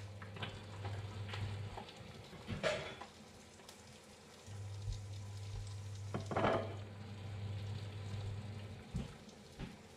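Instant noodles boiling in a stainless pot and eggs frying in a pan, a steady hiss and sizzle. A low cooktop hum drops out for a couple of seconds and returns, and two brief louder rustles stand out, about a third and two thirds of the way through.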